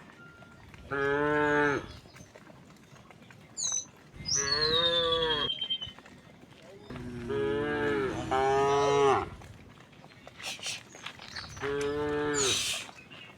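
Cows mooing: four long, low moos a few seconds apart, the third drawn out longer and overlapping a second cow.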